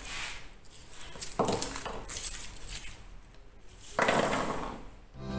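Garlic being broken apart and handled on a granite countertop: dry papery skins crackle and rustle, with light clicks as cloves touch the stone. About four seconds in comes a louder brushing sweep of a hand across the counter.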